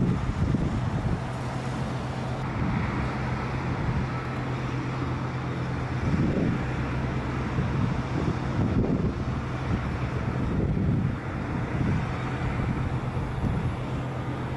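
An engine running with a steady low hum, with wind buffeting the microphone in gusts.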